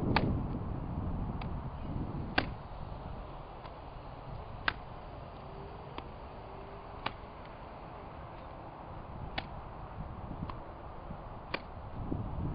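Faint sharp ticks, about one a second, over a low outdoor rumble.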